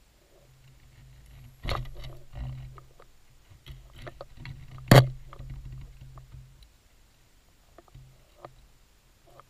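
Underwater diving noise: a low hum that stops about two-thirds of the way through and comes back briefly near the end, with scattered clicks and knocks, the loudest a sharp knock about five seconds in.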